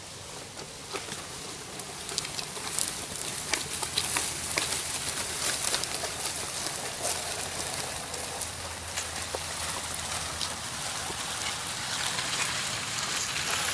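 A dead fallen tree with its branches dragged across dry dirt and leaf litter: a continuous scraping rustle full of twig crackles and snaps, with footsteps, growing louder as it comes closer.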